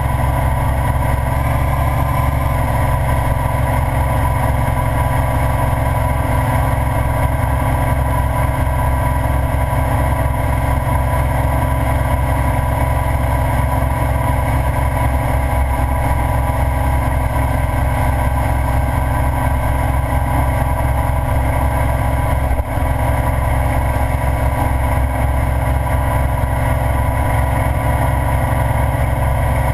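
Ural sidecar motorcycle cruising at steady road speed: its air-cooled flat-twin engine running steadily under a heavy rumble of wind on the microphone, with one momentary drop in level about two thirds of the way through.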